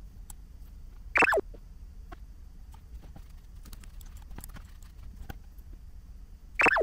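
Two short falling tones, each sliding quickly down in pitch, about five seconds apart, like an edited-in sound effect. Between them are faint scattered clicks, fitting mouse clicks during CAD drawing.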